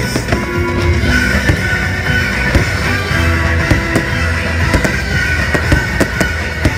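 Loud fireworks-show soundtrack music with a rock beat, with repeated sharp firework bangs going off over it.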